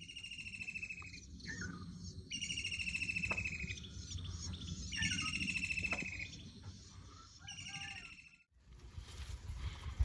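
A songbird singing: four fast, trilled phrases of about a second each with short pauses between, over a low outdoor rumble. Near the end the song stops abruptly and a different outdoor background begins.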